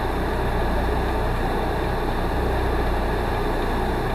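A stopped car's engine idling, heard from inside the cabin: a steady low hum with a hiss over it.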